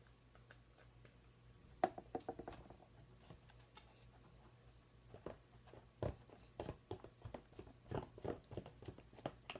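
Faint irregular clicks and taps of a spoon stirring glue and food dye in a bowl: a few knocks about two seconds in, then a busier run of taps over the second half.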